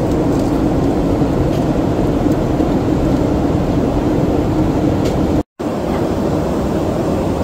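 Steady cabin drone of a jet airliner in flight, engine and airflow noise heard from inside the cabin, with a low hum underneath. It cuts out briefly about five and a half seconds in and resumes.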